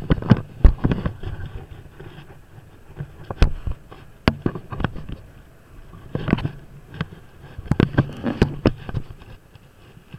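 Irregular sharp knocks and rattles from a scooter-mounted camera jolting over a rough lane, over a low rumble of wind and the Kymco Downtown 300i scooter's engine.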